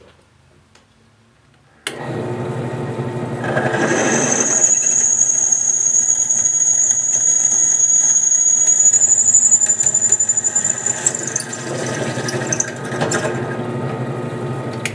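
Mini benchtop drill press motor switched on about two seconds in and running steadily. A sharp twist bit then bores through aluminum plate with a loud, steady high-pitched squeal that fades after several seconds, leaving the motor running.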